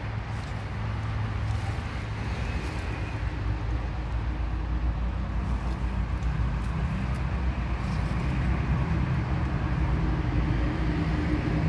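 A motor vehicle's engine running, a steady low rumble that grows slightly louder toward the end.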